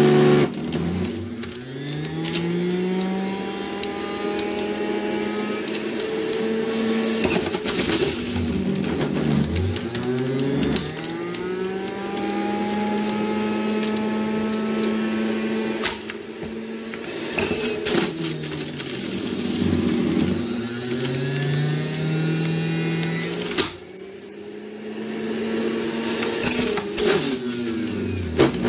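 Electric juice extractor's motor running and grinding through celery and carrots. Its pitch sags several times as produce is pressed down the chute and climbs back as the motor recovers.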